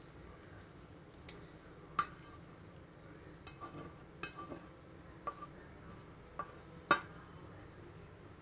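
A utensil clinking and tapping against a plate as cooked eggplant is served onto it: about eight scattered sharp clicks, the loudest about seven seconds in, over a faint background hiss.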